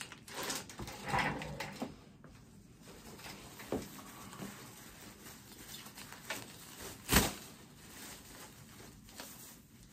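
Rustling and crinkling of a new urinary catheter's packaging as it is handled and opened, with a sharp snap about seven seconds in, the loudest sound.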